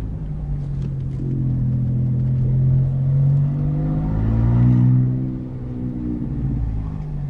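Volkswagen Up TSI's three-cylinder turbo engine running with no exhaust behind the downpipe, a deep open exhaust note; its pitch and loudness rise and fall once around four to five seconds in.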